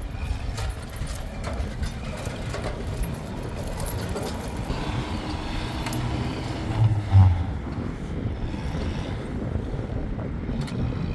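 A motor vehicle's engine running with a steady low rumble, with a louder low surge about seven seconds in.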